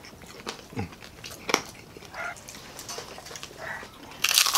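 Close-miked eating of crispy deep-fried food: scattered wet chewing clicks and bites on fried chicken, with a loud crunch of crisp fried batter near the end.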